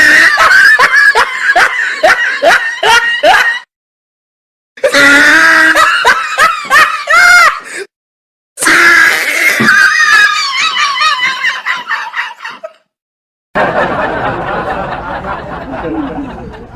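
Laughter in four separate stretches of a few seconds each, with dead silence between them; the last one fades out.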